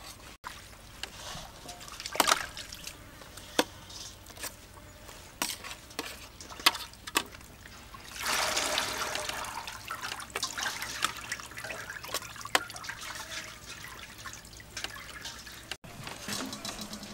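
Metal spoons clicking and scraping against a stainless steel tray as boiled fish flesh is picked off the bones, with a longer scraping noise about eight seconds in.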